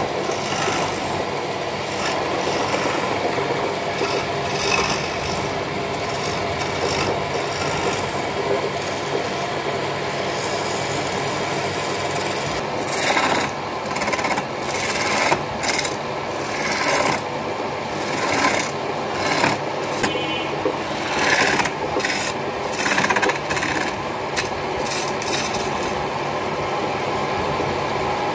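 Wood lathe running, with a hand-held turning chisel scraping and cutting into the spinning wooden spindle. From about halfway the cuts come as short repeated strokes, roughly one a second, each a louder rasp over the steady hum of the machine.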